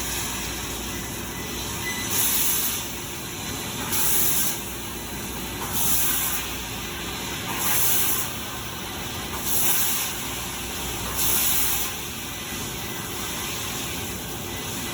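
Salvagnini CNC fiber laser cutting machine running, with a short hiss of gas roughly every two seconds (six times) over a steady mechanical hum.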